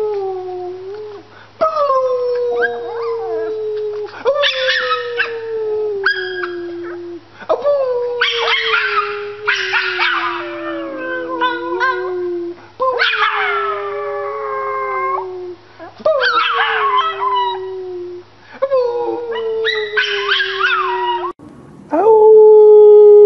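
Small Chihuahua-type dog howling: a string of about seven long howls, each falling in pitch. Near the end a different, louder steady held tone takes over.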